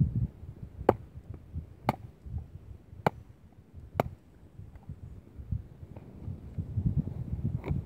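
Someone handling a large fish on the ice: irregular low thumps and rustling, with sharp clicks about a second apart in the first half and one more near the end.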